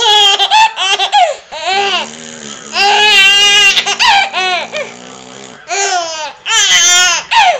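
A baby laughing hard at her father's fart noises, in several loud bursts of high-pitched laughter.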